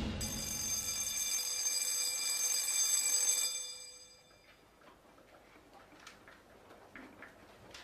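A bright ringing tone with many overtones starts suddenly, holds for about three seconds and then dies away, followed by faint ticking like a clock.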